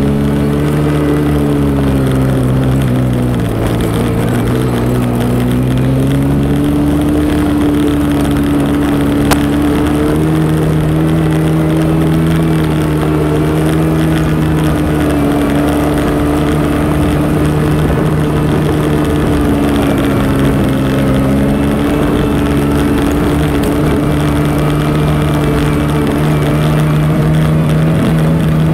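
ATV engine running steadily under the rider while cruising along a dirt trail, with a rough low rumble underneath. The engine note drops about three seconds in as the throttle eases, then climbs back and holds.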